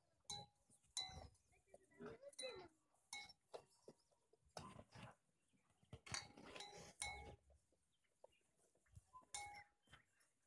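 A cow suckling at her own udder: intermittent short sucking and slurping sounds, with the metal bell at her neck clinking briefly several times as her head moves.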